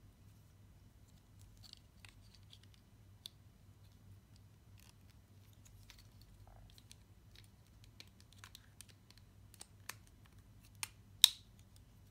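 Plastic clicks and rustles as a GoPro Hero 8 Black action camera and a small plastic accessory are handled, scattered and light at first, with a few louder clicks near the end and one sharp snap, the loudest sound, about a second before it ends.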